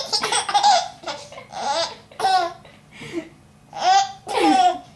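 A four-month-old baby laughing in a string of short, high-pitched giggles.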